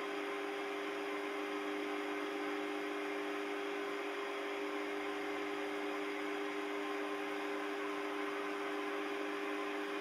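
Small Chinese benchtop lathe running at a steady speed: an even hum with a low whine over a soft hiss.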